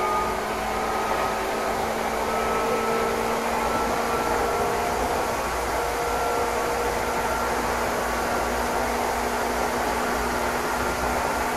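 Meitetsu Inuyama Line electric train running, heard from inside the carriage: a steady rush of running noise with several faint whining tones that slowly rise in pitch.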